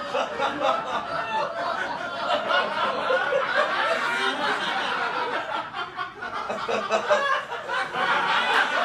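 Audience laughing continuously, many voices chuckling and laughing together.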